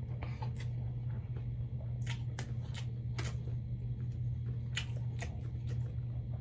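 Close-up eating sounds of spicy ramen noodles and shrimp: chewing with irregular short wet smacks and clicks, over a steady low hum.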